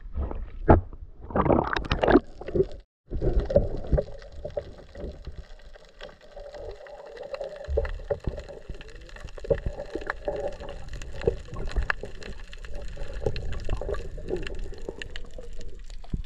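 Water splashing and sloshing against a boat's hull at the surface, then, after a sudden break about three seconds in, the muffled, gurgling sound of water heard with the camera submerged, with scattered small clicks. Splashing picks up again near the end as the camera breaks the surface.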